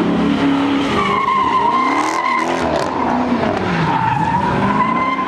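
A car doing donuts, its rear tyres squealing in a long wavering screech over the engine revving up and down.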